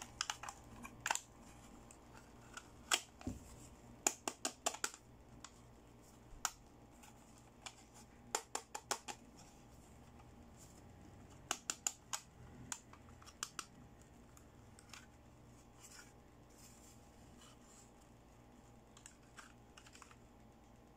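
Hard plastic clicks and taps from a cupcake-shaped toy makeup compact being handled, opened and closed, its pieces fingered. The sharp clicks come in quick clusters, then thin out to a few scattered taps in the last third.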